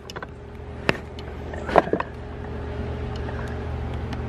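Tesla Model X power seat motor running steadily, powered directly through alligator clip leads because the seat controls don't work. Two sharp clicks come about one and two seconds in.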